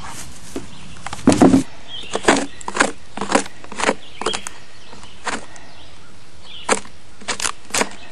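A hand tool scraping and chipping rotted wood out of an old pine log in a run of short, sharp strokes at an uneven pace, the heaviest a little over a second in.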